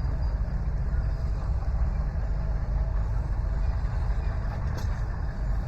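A low, steady engine hum, like an engine idling, with a general outdoor haze of background noise.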